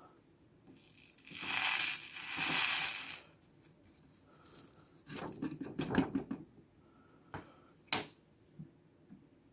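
Folded paper rustling as small gold pieces are tipped off it onto a digital pocket scale's pan, then a quick cluster of light ticks and taps about five to six seconds in as the gold settles and the paper is drawn away, and a single sharp tick near the end.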